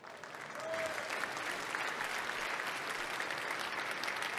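Large audience applauding, many hands clapping steadily.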